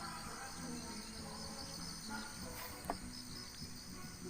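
Crickets chirping steadily in a continuous high trill, over a faint low hum, with one short knock about three seconds in.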